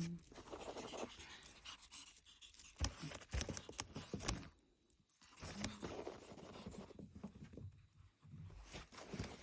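Ferret giggling: quick, breathy open-mouthed gasps in irregular bursts with short pauses between, and a few sharp clicks among them.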